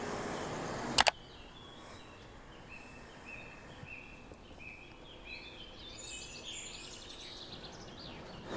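A bird calling: a run of short, high, even notes about two a second, then a few quicker chirps. A pair of sharp clicks comes about a second in.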